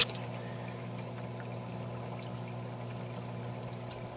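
Water splashing from a grow-bed drain pipe into an aquaponics fish barrel cuts off right at the start as the bed finishes emptying. It leaves the steady low hum of the submersible pump in the barrel and faint trickling.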